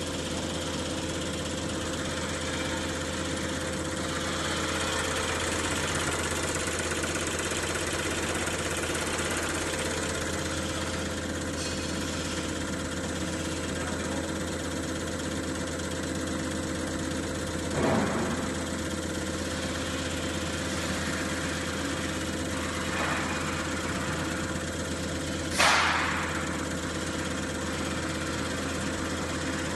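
CR708 common rail injector test bench running its warm-up stage: a steady machine hum from the bench's drive motor and high-pressure pump. A short thud rises above it about two-thirds of the way through, and a brief hiss that fades quickly comes near the end.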